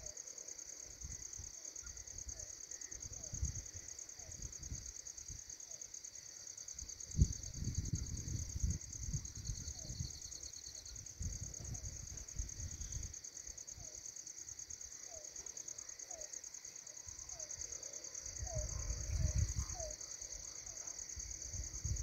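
A steady, high-pitched insect chorus of crickets chirring without a break. Faint short rising chirps come now and then, and low rumbles on the microphone swell about 7 seconds in and again near the end.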